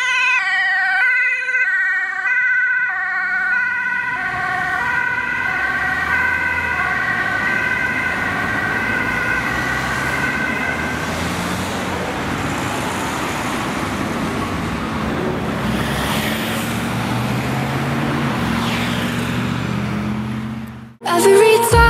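Ambulance two-tone siren switching between a high and a low pitch about every half second. It fades out over roughly ten seconds as the ambulance drives away, leaving the steady noise of passing road traffic. The sound cuts off abruptly near the end.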